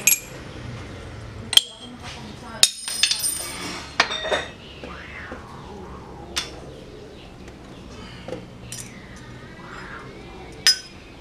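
Steel plates and engine parts clinking and knocking against the steel bed of a shop press as they are set down and moved: a dozen or so sharp separate metal clinks, most of them in the first few seconds.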